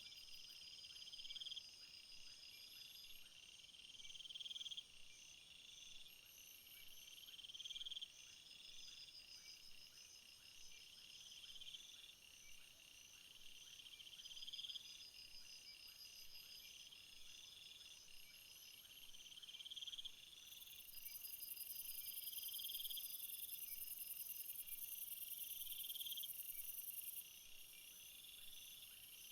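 Crickets and other field insects chirping together. A phrase repeats about every second and a half, swelling and then breaking off, over a steady trill. A higher, louder buzz joins in about two-thirds of the way through and stops near the end.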